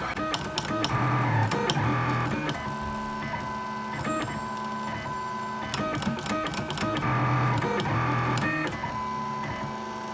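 Lulzbot AO-101 3D printer printing. Its stepper motors whine in a string of short steady tones that jump in pitch every half second or so as the print head changes moves, with faint clicks among them.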